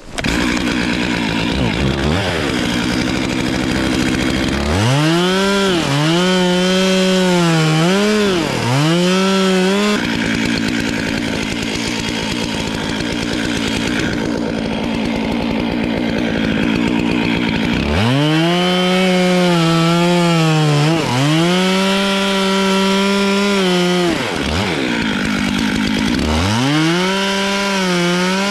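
Stihl MS 441 two-stroke chainsaw idling and then throttled up to full revs in several bursts, about 5 to 10 s in and again from about 18 s. Its pitch sags and recovers in each burst as the chain bites into wood.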